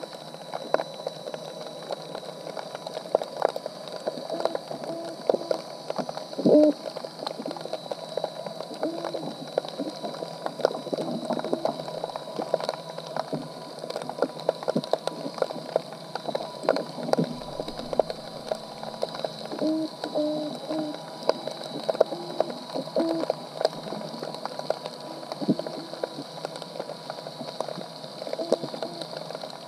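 Underwater sound picked up by a GoPro in its housing inside a submerged crab trap: a steady watery hiss with frequent scattered clicks and crackles, short low blips, and a faint steady high tone.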